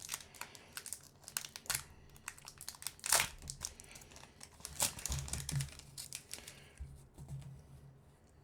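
Foil wrapper of a Lorcana trading card booster pack crinkling and tearing as it is opened by hand, in irregular crackles that are loudest about three seconds in and thin out near the end.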